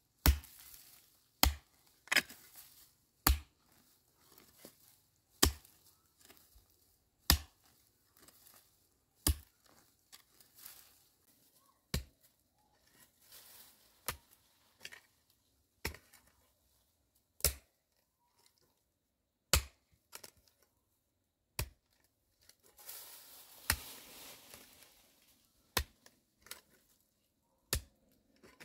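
Mattock striking dry earth in slow, regular strokes, a sharp thud about every two seconds, with scraping and rustling of dry grass and loose soil between strokes; the rustling runs longest about three-quarters of the way through.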